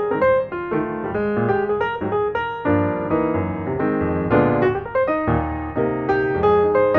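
Background piano music, a series of notes and chords played at a lively pace.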